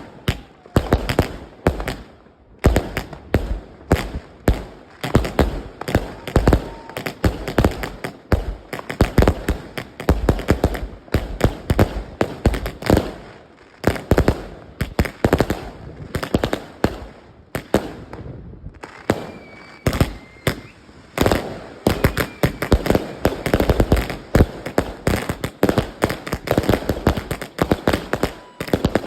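A 200-shot firework cake (MC148V 'Explosive Master') firing a rapid volley, one shot after another launching and bursting in quick succession. There are brief lulls about two seconds in and again around eighteen seconds in.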